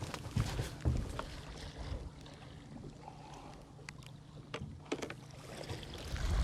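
Small fishing boat under way, with a low steady hum and water and wind noise, broken by a few sharp knocks and clatters of gear against the hull.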